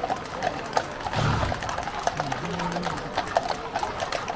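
Hooves of several ridden horses clip-clopping at a walk on a tarmac street, many hoofbeats overlapping in an uneven patter.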